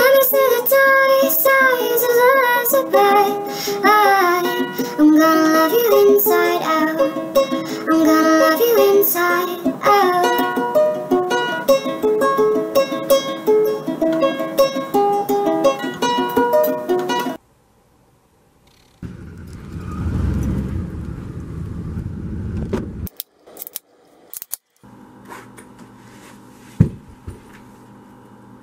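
A woman singing while playing a ukulele. It cuts off suddenly about 17 seconds in, and is followed by a few seconds of low noise, then quiet room tone with a single click.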